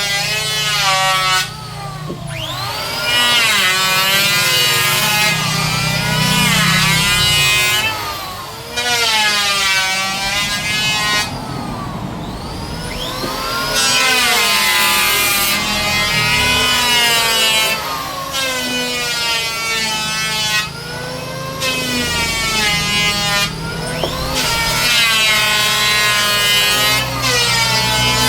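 Electric woodworking power tool running and cutting wood in repeated passes, its motor pitch sagging and rising again every few seconds as it loads and unloads.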